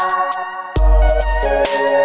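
Electronic music: held synth chords over sharp, regular drum hits, with a deep bass note coming back in about three-quarters of a second in.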